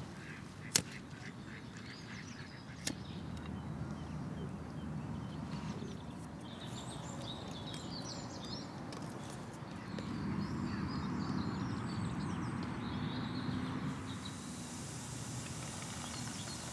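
Ducks quacking on the pond, with a sharp click about a second in and a steady hiss over the last few seconds.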